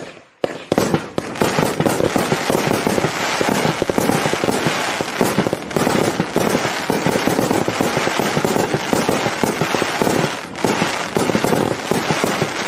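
Riakeo 'Full Auto' 49-shot, 1.2-inch consumer firework cake firing. A few separate shots come in the first second, then the shots and their bursts follow one another in a rapid, nearly unbroken barrage.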